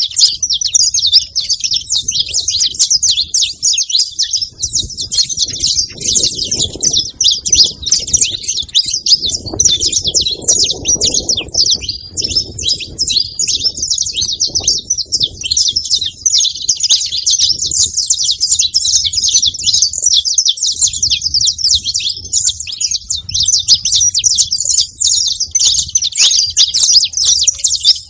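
A flock of saffron finches chirping and calling all at once, a dense, unbroken chatter of many birds. A low rumble comes and goes underneath.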